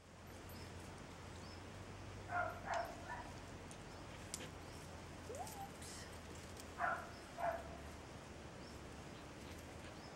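Dog barking in two short bursts: three barks about two and a half seconds in, then two more about seven seconds in.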